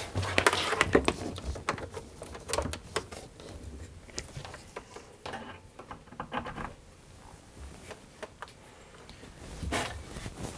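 Hands handling a sewing machine and its power cord while plugging it in: scattered light clicks, taps and plastic rustles, with a louder knock near the end.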